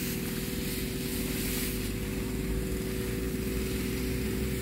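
Small engine of a power sprayer running steadily with an even hum, under the hiss of the spray from the hose nozzle.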